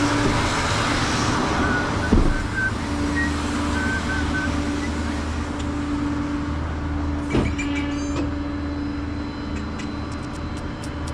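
Truck engine idling with a steady hum, and two short knocks, about two seconds in and again near seven seconds.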